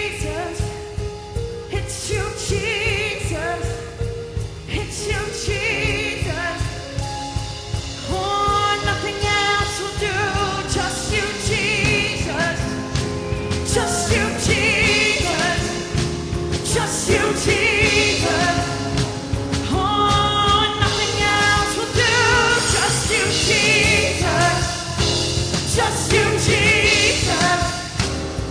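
Live church worship band and singers performing a gospel worship song: sung melody with vibrato over a steady beat and bass.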